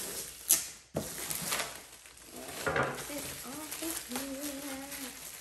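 Tight plastic shrink wrap being cut and pulled off a cardboard box: a sharp snap about half a second in, then crinkling of the plastic. A low murmuring voice comes in later.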